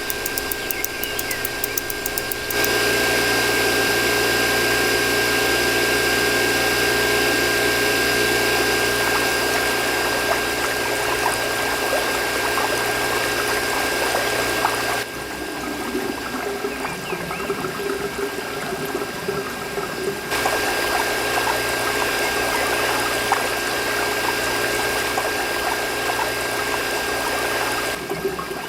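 A small electric water pump running with a steady high whine while water pours and trickles. The sound shifts abruptly a few times, about 2.5, 15, 20 and 28 seconds in.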